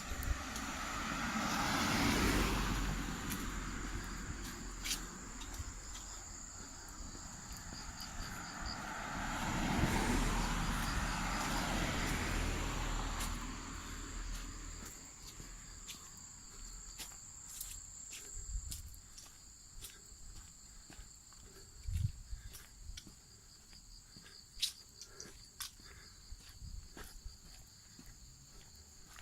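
Two vehicles pass, the first about two seconds in and the second around ten seconds, each rising and fading. Insects trill steadily on high notes throughout, and light footsteps tap once the traffic has faded.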